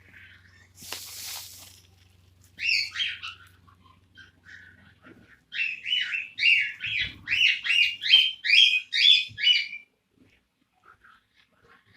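Female cockatiel chirping: a couple of calls about three seconds in, then a quick run of about a dozen repeated chirps, about three a second, lasting some four seconds. A short hiss comes about a second in.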